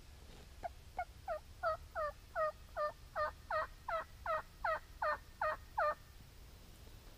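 A run of about fifteen turkey yelps, roughly three a second, each note dropping in pitch. The series grows louder over the first few yelps and stops about six seconds in.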